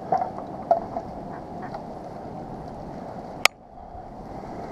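Live decoy duck quacking several times in quick succession, over steady wind noise. A single sharp click comes about three and a half seconds in.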